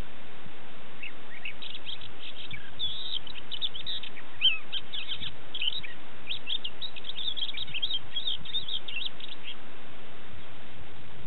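Crested lark singing: a rapid, varied run of high chirps and short trills, falling silent near the end.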